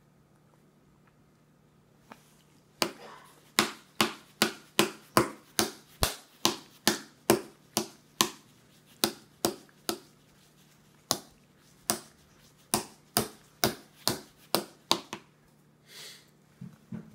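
A toddler's plastic fork banged over and over on a high-chair tray: sharp knocks about two or three a second, starting around three seconds in and stopping around fifteen seconds, with a few softer knocks near the end.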